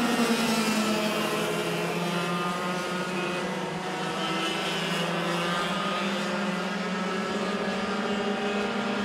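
Racing kart engines running hard as two karts race together, a steady drone of more than one engine pitch that dips slightly and then climbs again.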